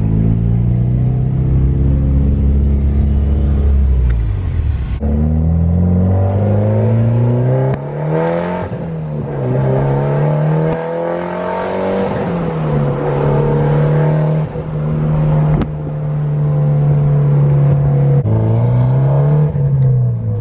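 Mitsubishi Lancer Evolution X's turbocharged 2.0-litre four-cylinder engine pulling through the gears, heard from inside the cabin. The engine note climbs under acceleration and drops back at each gear change, several times, holding steady for a few seconds between.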